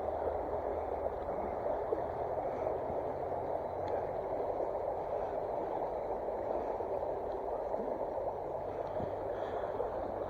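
Steady rushing of a mountain trout stream.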